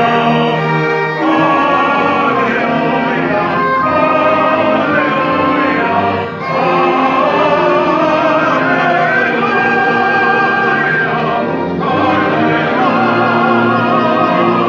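A small string orchestra, with cellos and violins, accompanies singers in operatic-style sacred music, the voices holding long notes with vibrato. The music breaks off briefly between phrases three times.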